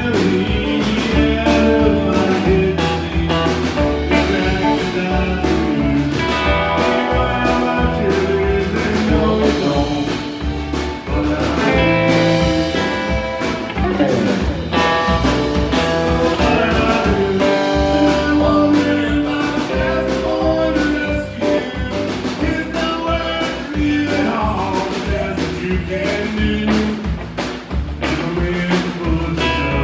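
Live country band playing a song: a male singer with acoustic guitar over a steady drum beat, with fiddle.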